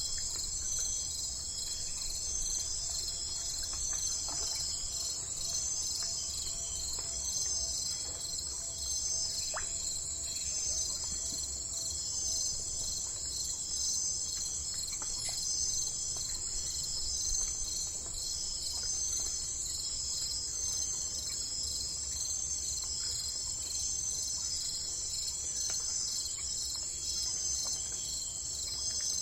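Steady chorus of crickets, a dense high-pitched trill that pulses evenly and never stops, over a faint low rumble.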